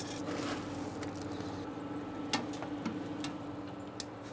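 Wood pellets being filled into a perforated metal smoke tube: scattered light ticks and taps, over a steady low hum.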